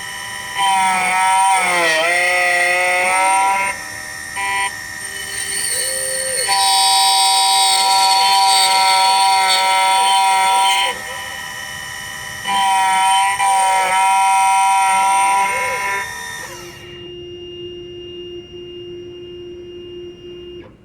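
Miracle A7 Plus computerized key-cutting machine milling a key blank: a steady high whine from the cutter spindle that gets louder and quieter in stretches and dips in pitch as the cutter bites. About four seconds before the end the spindle winds down with a falling pitch, leaving a faint steady hum.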